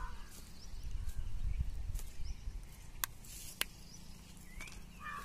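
Open-air waterside ambience: low wind rumble on the microphone, a few sharp clicks, and short bird calls near the end.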